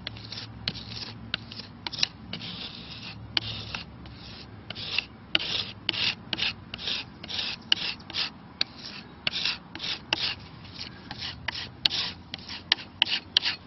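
Steel putty knife scraping across a weathered, cracked wooden windowsill in quick, irregular strokes, about two a second, as it works thinned glazing putty into the weather checks.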